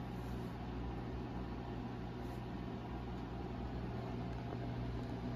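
Luxman PX-100 turntable running with its tonearm lifted off the record: a steady low hum with faint hiss.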